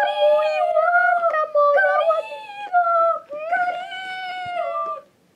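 A child singing a tune in a high voice: several phrases of long, held notes that glide a little, breaking off about five seconds in.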